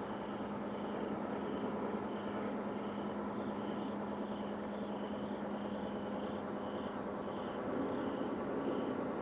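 Unidentified noise from the sky: a steady, roaring rumble with a constant low hum running under it. Faint high chirps repeat about twice a second over it.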